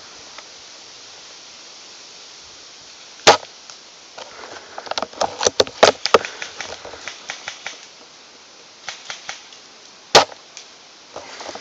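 Airsoft guns firing: two loud single cracks, about three seconds in and again near ten seconds, with scattered quicker snaps between them. Steady wind noise runs underneath.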